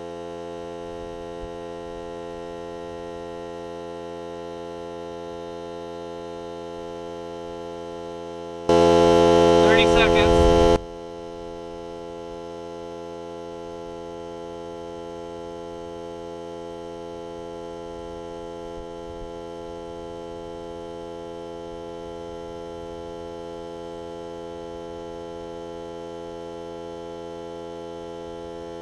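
Ryobi cordless air compressor running steadily with an even hum while pumping up a deflated pickup tire. About nine seconds in, it becomes much louder for about two seconds.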